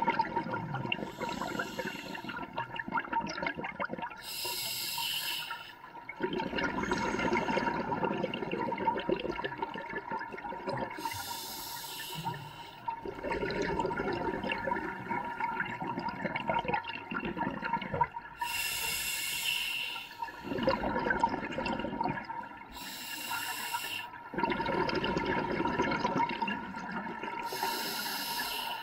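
A scuba diver breathing through an open-circuit regulator: about six breaths, each a short hissing inhale followed by a longer stretch of exhaled bubbles. A faint steady tone runs underneath.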